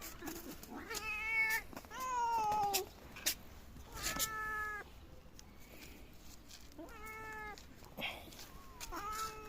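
Domestic cats meowing: about five separate meows, each under a second long and a second or two apart, some sliding in pitch. A few light clicks fall between them.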